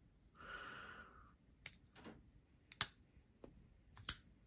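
Winter Blade Co. Factor folding knife worked by hand: a soft short hiss, then a few light clicks from its magnetic detent and lock, and a sharp snap near the end as the blade is flicked open.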